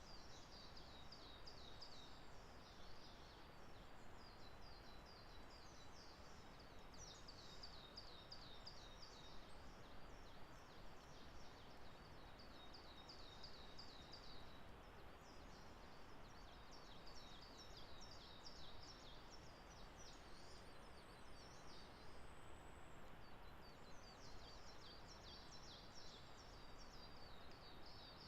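Faint songbird song: phrases of rapid, high, downslurred notes, each phrase lasting a second or few, repeating every few seconds over a low steady background hiss.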